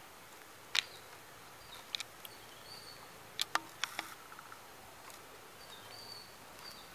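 A few sharp clicks and snaps of dry twigs as two kittens scramble through a pile of branches, the loudest just under a second in and a quick cluster around the middle. Short high bird chirps in the background.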